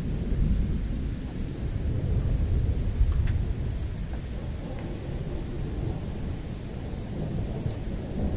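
Rolling thunder rumbling through a thunderstorm, loudest about two to three seconds in, over the steady hiss of rain.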